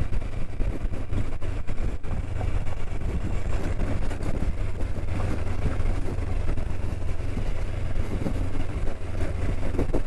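Onboard sound of a Kawasaki Versys-X 300 ridden along a gravel track: the parallel-twin engine runs with a steady low drone under continuous road and wind rumble.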